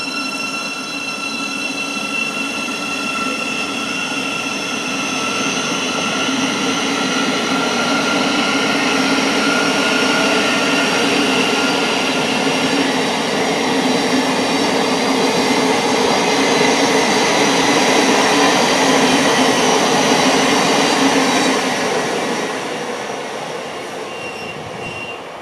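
Thameslink Class 700 electric multiple unit moving along the platform line, its traction equipment giving a steady whine of several high tones over the rumble of wheels on rail. The sound builds for about ten seconds, holds, and falls away near the end.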